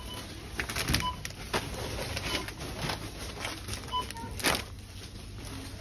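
Supermarket checkout barcode scanner giving short high beeps as items are scanned: one about a second in and a quick pair around four seconds. Between them come rustling and knocks of grocery packets being handled, the loudest a clatter just after the pair.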